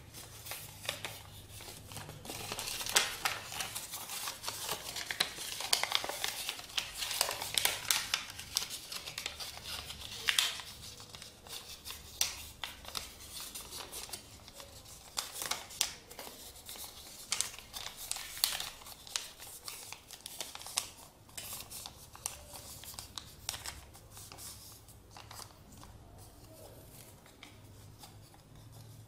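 A sheet of paper being folded and creased by hand into an origami crane: dense rustling and crackling with quick, crisp snaps as the creases are pressed. The rustling is busiest for most of the stretch and thins out and grows quieter near the end.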